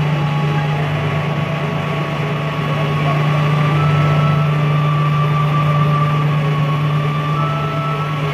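Steady machinery drone: a loud, constant low hum with a fainter steady whine above it, unchanging throughout.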